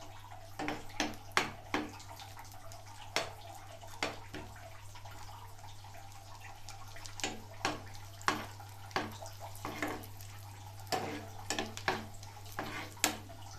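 Chopped nuts and dried fruit frying in hot ghee with a steady sizzle, being fried until lightly browned. A steel ladle stirs them, clinking and scraping against the pan at irregular moments.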